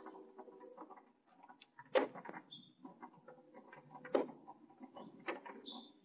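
An adult finch shifting and rustling in a twig nest over its nestlings, close to the microphone: scratchy crackling of nest material with a few sharp knocks about two, four and five seconds in, and a couple of short high chirps.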